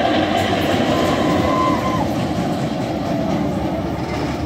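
Big Thunder Mountain mine-train roller coaster running on its track, a steady train noise that eases slightly after the first two seconds.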